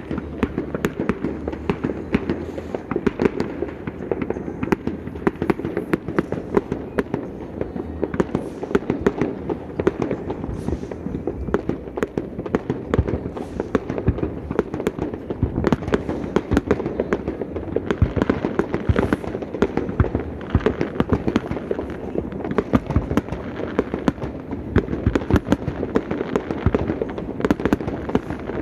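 Fireworks going off in rapid succession: a dense, unbroken stream of crackles and pops, with a few sharper cracks in the middle.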